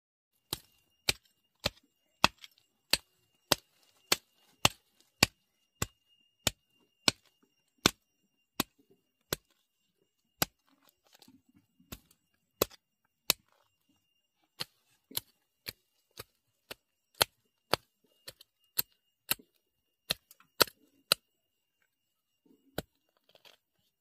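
Hand hoe chopping into soil: a steady run of sharp strikes, a little under two a second, with brief pauses about halfway and near the end.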